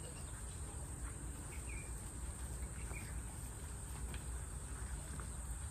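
Steady high-pitched drone of insects, with a few short bird chirps and a low rumble underneath.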